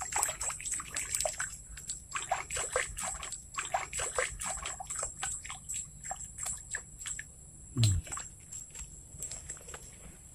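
Small irregular splashes and trickling water as a fishing bait is worked along the surface of a shallow ditch, the splashes thinning out after about seven seconds. A brief low falling sound about eight seconds in is the loudest moment.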